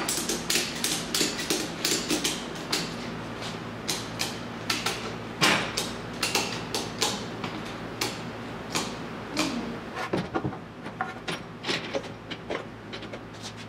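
Irregular sharp clicks and knocks, about two or three a second, from pulling the dented rear fender of a Triumph GT6 out with a ratchet strap.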